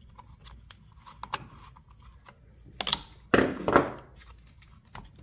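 A chainsaw tool clicks and scrapes against the nuts and the plastic side cover of a Ryobi RY3716 gas chainsaw as the cover is worked loose. About three seconds in there is a louder scrape and clatter as the cover shifts.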